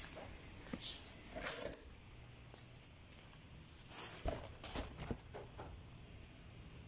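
Scattered light rustles and knocks from handling and movement, with a few sharp clicks about four to five seconds in.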